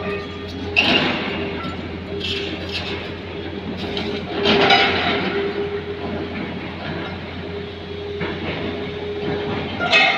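Diesel engine of a tracked excavator running steadily, with several brief high-pitched metallic squeals and clanks from the steel tracks and machinery, the strongest one a little before the middle.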